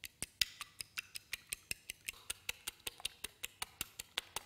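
Fork beating egg white in a small ceramic bowl: quick, even clicks of the metal tines against the bowl, about six a second, as the white is whipped to a stiff foam.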